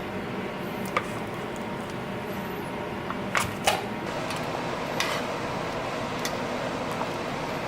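Kitchen range-hood fan running with a steady whoosh, with a few light clicks about one, three and a half and five seconds in.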